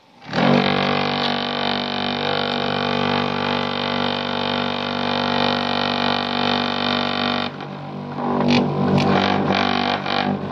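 A simple chopping machine (mesin cacah) starts up and runs with a steady droning hum. About seven and a half seconds in, the sound turns rougher and more uneven, with rapid clattering.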